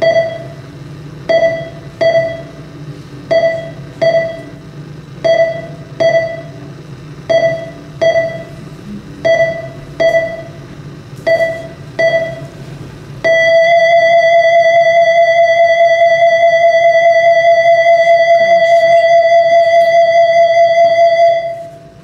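Electronic heart-monitor sound effect: a pure beep repeating in an uneven pulse, about once a second. About 13 seconds in it turns into one steady unbroken tone, the flatline that signals death, which cuts off just before the end.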